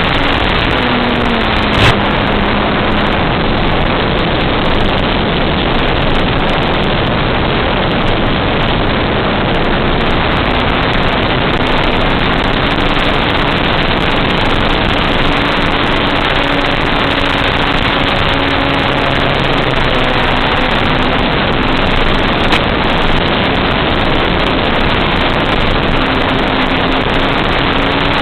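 Onboard audio of an electric FPV radio-controlled plane in flight: a loud, steady rushing noise with a faint motor and propeller hum that drifts up and down in pitch.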